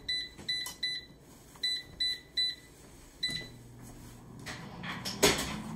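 Digital air fryer's touch-control panel beeping at each button press, about seven short, identical high beeps over the first three seconds as the time and 350 °F temperature are set. Then a steady low hum as the air fryer starts running, and a single thump near the end.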